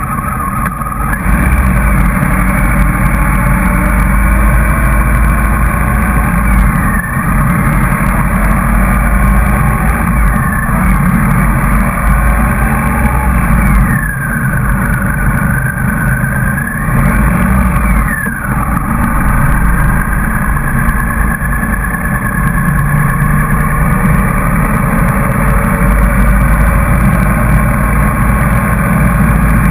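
Motorcycle riding at motorway speed in a group of motorcycles, with its engine running under a loud, steady rumble of wind on the bike-mounted microphone. The engine note dips and rises a few times.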